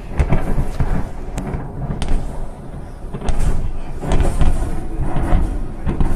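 Distant explosions rumbling low, with several irregular dull booms and thuds spread through, heard from a vehicle.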